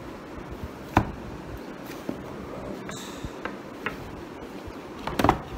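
Cardboard product box being handled and opened: a sharp knock about a second in, a few light taps, and a cluster of knocks near the end as the inner box is worked out of the outer sleeve.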